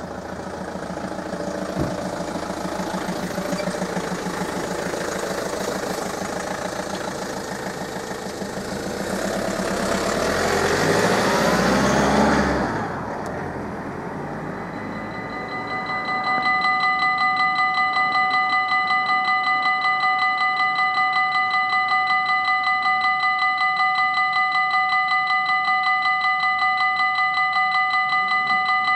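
A motor vehicle's engine runs close by, builds to its loudest shortly before halfway, then drops off sharply. Just past halfway a level crossing's electronic warning bell starts ringing rapidly and steadily, the warning of an approaching train.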